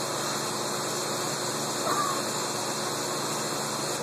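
Water rushing steadily into an underwater treadmill tank as it fills, cutting off suddenly at the very end.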